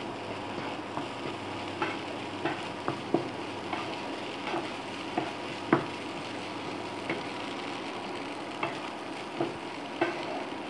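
Spatula scraping and knocking against a nonstick frying pan as boiled spiral pasta is tossed with fried vegetables, giving irregular short clicks over a soft steady sizzle.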